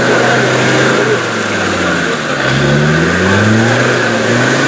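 Land Rover Defender 110 Td5's five-cylinder turbodiesel engine working through deep mud: running steadily, dipping about two seconds in, then revving up.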